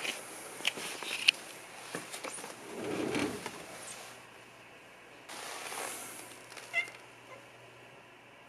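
Domestic cat giving a short meow near the end, after a few sharp clicks and a brief rustling noise about three seconds in.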